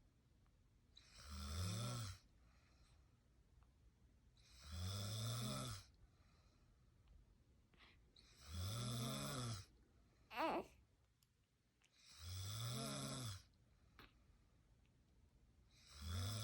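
A woman snoring in slow, even breaths, one snore every three and a half to four seconds, each lasting about a second with a pitch that rises and falls. A brief, high squeak about ten seconds in.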